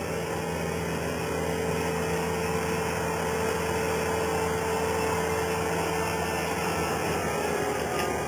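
Skid steer loader engine running steadily with a held whine.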